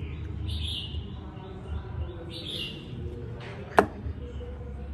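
Steady low background hum with a few short high chirps, and one sharp click just before the sauce cup is lifted, about four seconds in.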